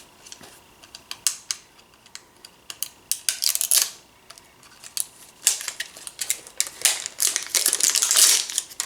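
Hands opening a toy mystery box's packaging: a run of sharp clicks and crinkling, scattered at first, then thicker a few seconds in and through the second half.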